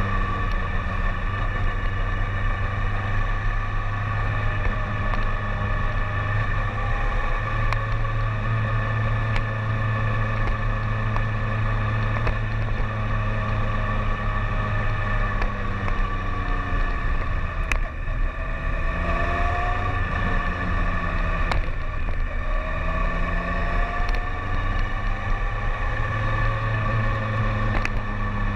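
BMW K1300S's inline-four engine running steadily under way, heard from on the bike. About two-thirds of the way through, the revs drop and then pick up again.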